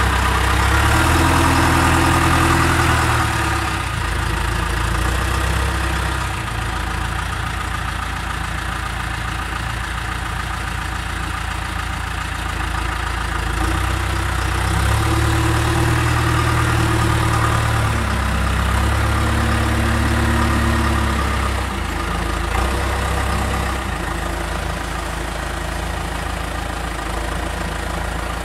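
Backhoe loader's diesel engine running steadily, growing louder twice for several seconds at a time, at the start and again about halfway through.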